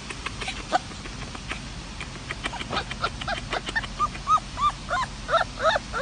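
Puppy whimpering in short, high, squeaky yips that come more and more often through the second half, with a few scattered clicks early on.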